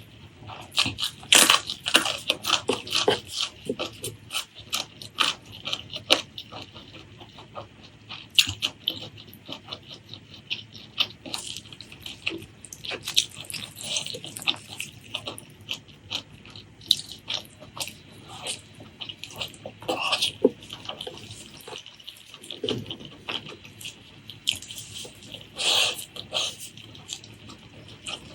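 Close-miked eating sounds: wet chewing and lip-smacking on pork leg curry and rice, a rapid, irregular run of sharp smacks and clicks with brief pauses.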